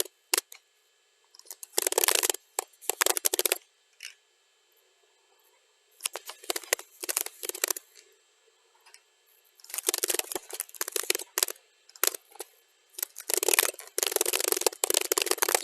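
Computer keyboard typing sped up to double speed: rapid runs of key clicks in bursts of one to three seconds, broken by pauses of a second or two.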